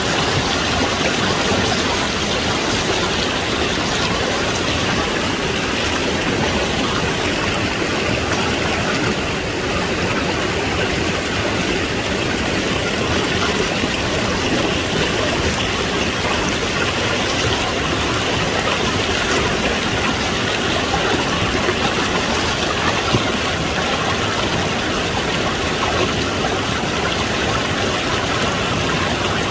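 Mountain valley stream rushing, a steady, unbroken sound of water.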